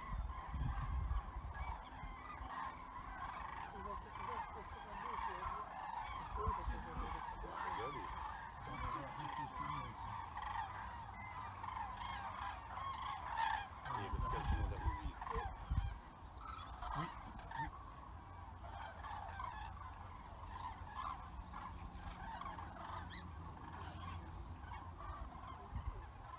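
A migrating flock of common cranes calling continuously overhead, a dense chorus of overlapping trumpeting calls from many birds at once. A few low rumbles come through near the start and about halfway.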